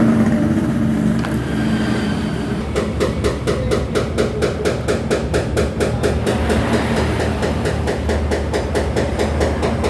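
Steady, rapid hammering, about three or four sharp blows a second, starting about three seconds in, over background traffic noise.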